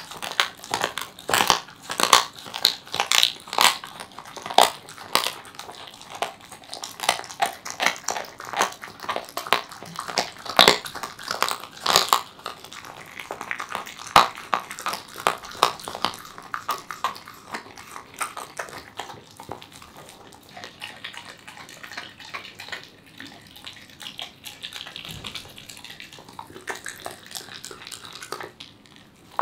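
A Welsh corgi chewing a raw poultry wing: irregular crunches and clicks of teeth working through the raw meat, skin and bone. They come thick and fast at first and thin out in the second half.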